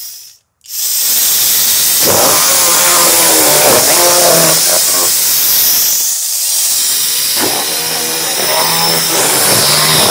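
Homemade chainsword (a chainsaw bar and chain on a handheld power unit) running with a loud hissing whir as it cuts through a cardboard box. It stops for a moment about half a second in and starts again, and its pitch wavers twice as the chain bites into the cardboard.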